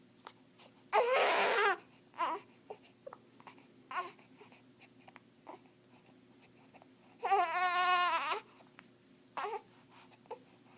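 Baby with the hiccups fussing and crying: two drawn-out, wavering cries, about a second in and about seven seconds in, with short yelps between them.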